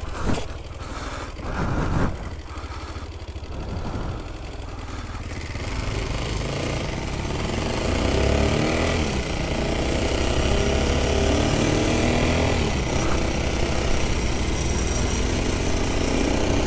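Small ATV engines running and revving during a speed run. Engine pitch rises and falls as the quads accelerate, getting louder from about five seconds in.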